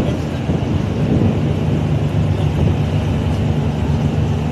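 Steady low drone of ship machinery running, with wind rumbling on the microphone.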